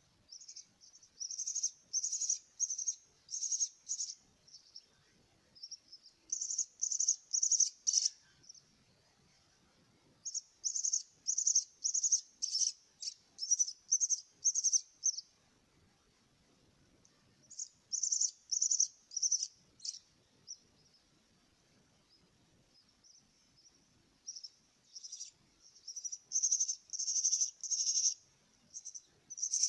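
Jalak (starling) chick giving high, repeated begging calls, about two to three a second, in bouts of a few seconds with short pauses between them.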